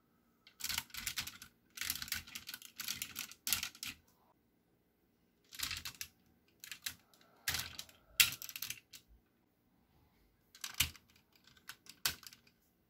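Hard plastic parts of a DX Engine-Oh combining robot toy clicking and rattling as hands handle and adjust it, in several short bursts of clatter separated by brief pauses.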